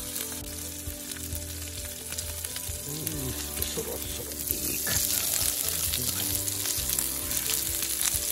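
Salt-and-peppered beef sinew frying in a black iron pan over a wood fire: a steady sizzle with many small crackles that grows louder about halfway through.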